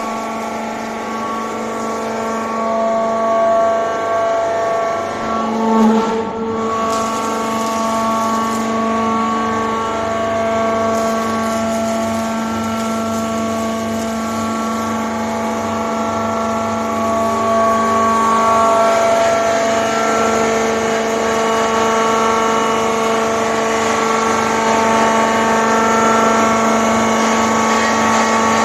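Hydraulic power unit of a Demak metal scrap baling press running: its electric motor and pump give a steady hum of several held tones.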